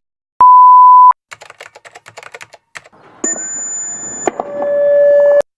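Electronic test tones. A loud steady 1000 Hz beep, then a quick run of keyboard-like clicking, then a noisy burst with an ear-splitting high squeal. Last comes a steady tone near 590 Hz that grows louder: the alert tone retuned from 1000 Hz to 590 Hz.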